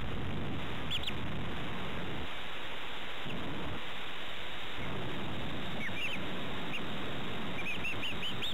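Young chicks peeping: a few short, high chirps about a second in and a quick run of them near the end, over a steady background hiss.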